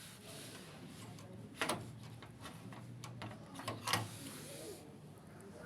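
Beko washing machine drain pump running with a low hum and irregular rattling knocks, two of them sharp: the faulty pump that fails to drain the water.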